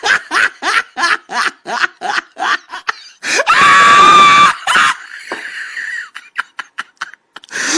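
A person laughing in rapid bursts, about four a second, broken by a loud scream lasting over a second about three and a half seconds in, then more laughter.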